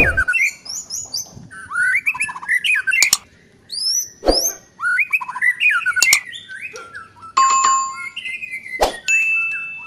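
A songbird singing a fast, varied run of whistled chirps and sliding notes, broken by several sharp clicks.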